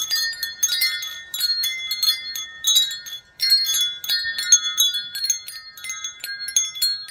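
Wind chimes ringing, their tubes struck irregularly several times a second with overlapping high ringing tones, and a brief lull about three seconds in.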